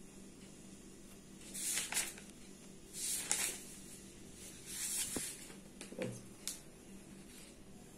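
Three short, soft rustling hisses about a second apart, each about half a second long, then a few light clicks, over a faint steady hum.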